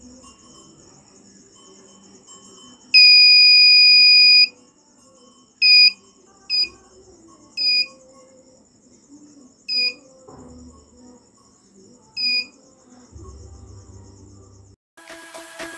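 Buzzer of a homemade buzz wire game sounding when the hook touches the copper wire: one long, high, steady beep of about a second and a half, then five short beeps of the same pitch spread over the next several seconds.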